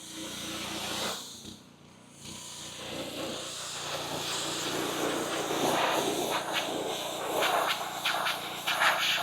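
Simpson gas pressure washer spraying a high-pressure jet of water, a loud rushing hiss over the steady hum of its Honda GX engine. The spray cuts out briefly at about a second and a half in, then resumes and grows stronger, with a rougher spattering as the jet strikes the trailer's aluminum.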